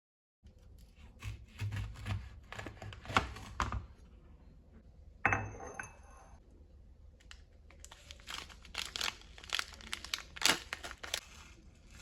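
Crinkling and crackling handling noises, like paper or plastic being crumpled or torn up close, with many sharp clicks and a louder short burst about five seconds in.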